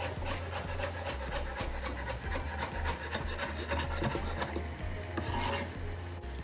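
Knife chopping fresh coriander leaves: quick, even strokes about four or five a second, stopping about four and a half seconds in, followed by a brief scrape.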